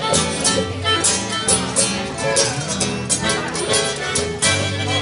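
Live acoustic blues band playing an instrumental passage between sung verses: acoustic guitars strumming a steady rhythm and a fiddle, with a harmonica played into a microphone.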